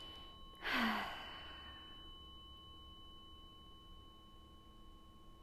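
Tuning forks ringing with steady high tones that slowly fade. About a second in, a loud breathy sigh, an exhale that drops a little in pitch at its end.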